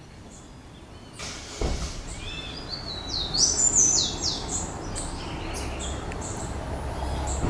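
Small birds chirping, a quick series of high calls that is loudest about halfway through, over a steady background noise; a dull thump comes about a second and a half in.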